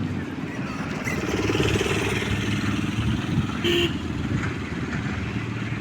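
An engine running steadily, with a short electronic beep about four seconds in.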